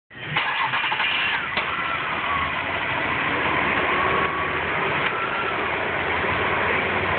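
Car engine running steadily, with a few slight rises and falls in pitch, as when it is blipped in gear against the brake to check for a loose engine mount.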